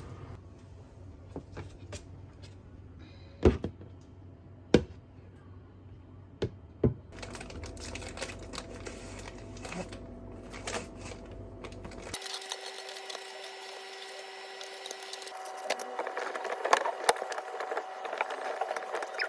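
Light clicks and taps of things being handled, with four sharp knocks in the first half. About two-thirds of the way in, the low background hum cuts off and faint steady tones with light ticking take over.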